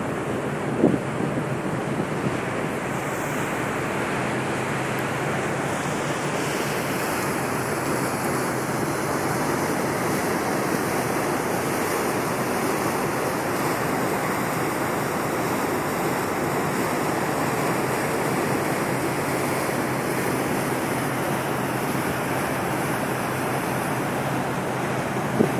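Steady rush of the ferry's churning wake water mixed with wind buffeting the microphone on the open deck at sea, with a low, even hum underneath.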